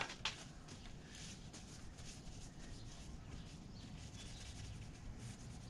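Faint rubbing and scuffing of a paper towel wet with brake cleaner, wiping down a Harley-Davidson Street Glide's clutch slave cylinder cover, with one light click just after the start.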